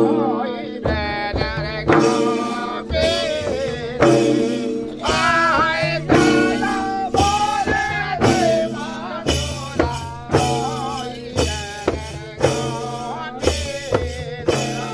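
Odia folk song for the Kathi Nacha stick dance: singing over hand-beaten double-headed barrel drums, with sharp drum strokes in an even beat and a steady held tone underneath.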